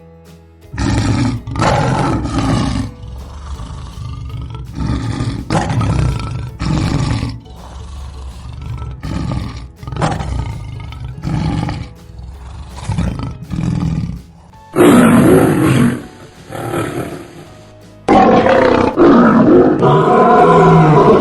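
Lion roaring: a run of short grunting roars about once a second, then louder, longer roars in the last third.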